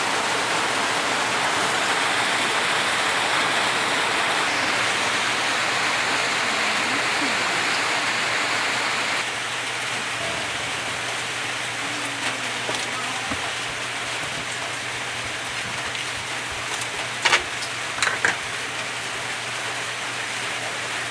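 Steady sizzling hiss of food frying in a hot pan. It drops a little about nine seconds in, and a few sharp clicks come near the end.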